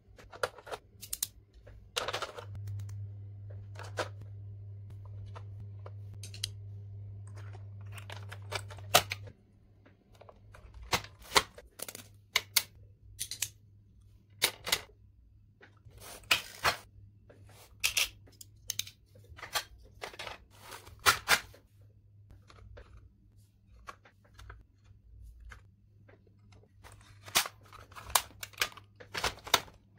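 Plastic stationery being handled and set into a hard plastic pencil box: a string of sharp clicks, taps and clacks with short pauses between them. A low steady hum comes in a couple of seconds in and stops abruptly about nine seconds in.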